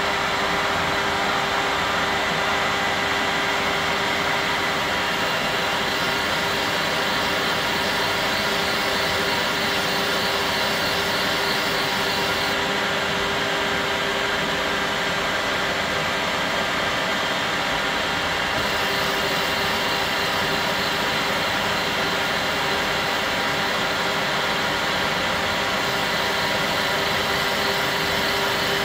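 TOS Hostivar 2Ud 1000 cylindrical grinder running: the grinding wheel and the work head's four-jaw chuck spinning with coolant pouring, a steady machine hum with one constant tone. The wheel is grinding a small steel part held in the chuck.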